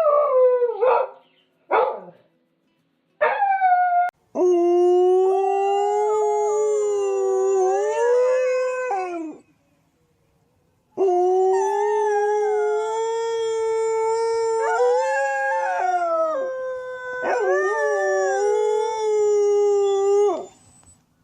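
Dog howling: a few short falling yelps in the first four seconds, then three long drawn-out howls of several seconds each, with a second howl briefly overlapping in the middle one.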